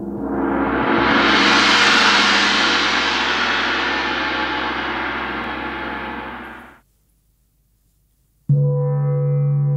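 A shimmering gong-like swell builds for about two seconds, then slowly fades and cuts off about seven seconds in. After a short silence, a forged Tibetan gong is struck once with a felt mallet and rings on with a steady low hum.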